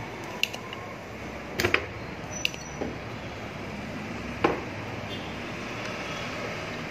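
About five sharp clicks and taps from a desoldering pump being handled and worked against a circuit board, the loudest about one and a half seconds in, over a steady low background hiss.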